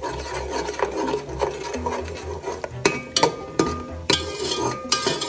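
Metal slotted spoon scraping and knocking against a metal pot as beaten eggs are stirred and scrambled in hot ghee, with irregular clinks and scrapes.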